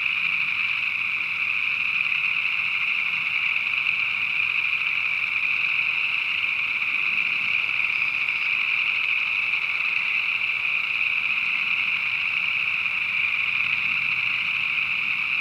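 A dense chorus of many frogs calling at once from a pond, a steady high-pitched din with no single call standing out.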